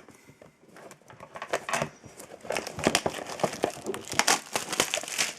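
Plastic wrapping on a trading card blaster box being crinkled and torn open: irregular sharp crackles that start about a second in and go on in quick clusters.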